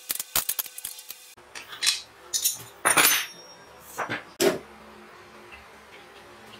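Metal hand tools and brass fittings being worked by hand: a fast run of small clicks in the first second or so, then several separate metal clinks and rattles, the loudest about three seconds in.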